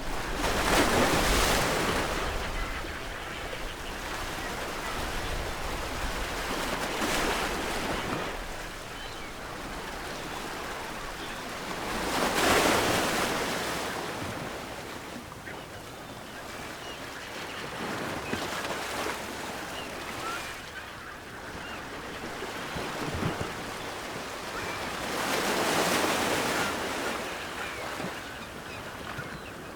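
Ocean waves breaking on a shore, five surges swelling and falling back about every six seconds over a steady wash of surf.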